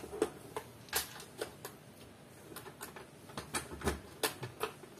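Small metal clicks and knocks from a steel electronic safe being unlocked with its key: the key turning in the lock and the lock mechanism clicking, a dozen or so irregular taps.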